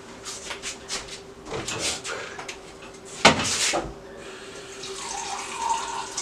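Water running from a kitchen tap and splashing, uneven, loudest a little after three seconds in.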